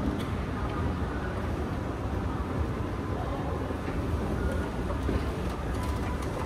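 Steady low mechanical rumble of a moving escalator being ridden down, over the hum of a large indoor lobby.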